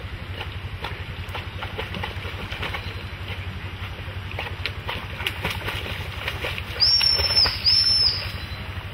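A black retriever splashing and pushing through water and twiggy brush, with a steady crackle of small splashes and snapping twigs. About two-thirds of the way in come two short, high-pitched whistle blasts, the loudest sound here: a gundog handler's whistle.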